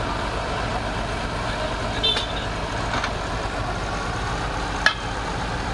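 Heavy-equipment diesel engine running steadily, with a few sharp metallic clanks, one ringing briefly, from work on the thrown track.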